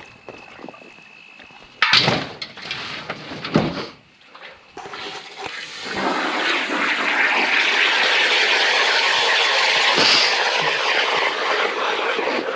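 Two metal knocks as a piece of scrap is handled, then water pouring and splashing out of it in a steady rush for several seconds before tapering off: water trapped inside the scrap piece draining out.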